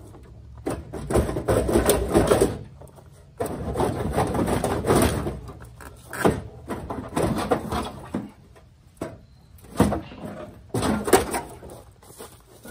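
Steel front fender of a 1981 Camaro Z28 being wrenched and pried off the car by hand. There are irregular bursts of sheet metal scraping, creaking and clattering as the panel flexes and tears loose.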